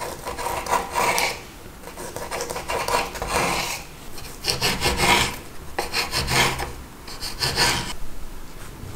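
Knife cutting sliced ham on a wooden cutting board, the blade rasping against the wood in repeated strokes about one to two seconds apart.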